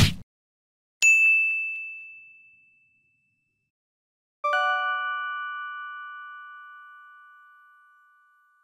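Title-animation sound effects: a short thud, then about a second in a single bright ding that fades quickly, and at about four and a half seconds a lower bell chime that rings out slowly for about four seconds.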